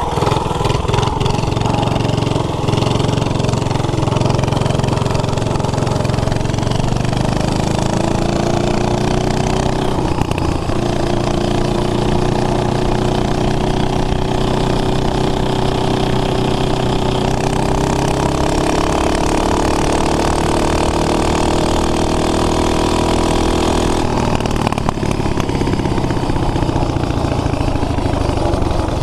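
Single-cylinder 5 hp flathead Briggs & Stratton engine on a Baja Doodle Bug mini bike, running hard under throttle. Its speed slowly climbs through the middle and falls away near the end.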